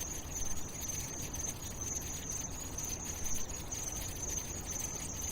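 A steady, high-pitched insect-like chirring with a fast flutter, over a low hum.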